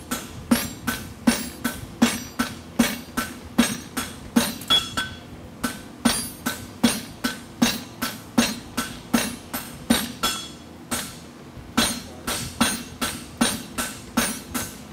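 Hand hammer striking red-hot horseshoe bar stock on an anvil in a steady rhythm, about three blows a second, each with a short metallic ring. The blows stop for about a second roughly two-thirds of the way through, then resume.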